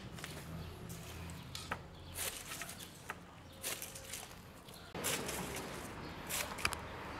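Handling sounds of a wooden board and pineapples over a plastic basket: scattered light knocks and rustles. About five seconds in, a large knife starts slicing the rind off a pineapple on the board, with a hissing scrape and a couple of sharp clicks of the blade.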